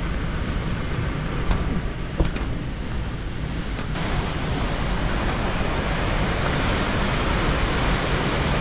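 Steady rush of flowing river water, growing fuller and louder about four seconds in, over a low rumble. A few light clicks sound near two seconds in.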